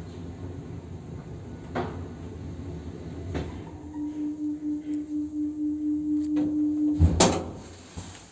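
Zremb passenger lift coming to a stop: a low running rumble with two sharp clicks, then a pulsing hum for about three seconds, ending in a heavy door clunk about seven seconds in.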